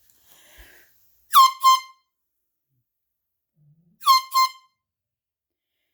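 Handheld horn sounded in two pairs of short, loud honks, the first pair about a second and a half in and the second pair about four seconds in. Each honk starts with a quick dip in pitch, then holds a steady note.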